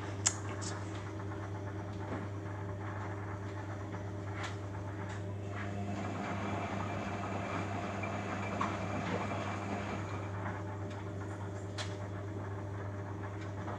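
Beko Eco Care WMA 1510 W washing machine running, a steady low hum with a sharp click just after the start.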